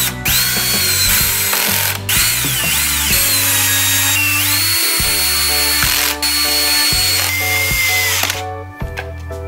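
Cordless drill-driver driving screws back into a hoverboard's casing, its motor whine rising and falling as each screw runs in, with brief pauses between screws. It stops about eight and a half seconds in.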